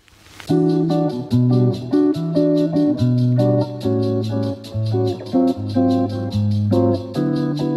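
Background music: plucked guitar over a bass line with a steady ticking beat, starting up again after a brief drop at the very start.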